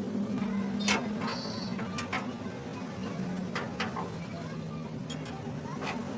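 Wrench working a bolt at a truck's leaf-spring mount: a few scattered sharp metallic clicks over a steady low hum.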